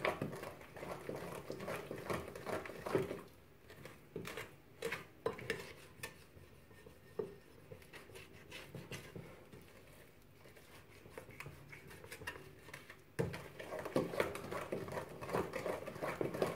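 Wooden spoon stirring cake batter in a glass mixing bowl, with irregular scrapes and light knocks against the glass. It goes quieter for a while in the middle, then the stirring picks up again near the end.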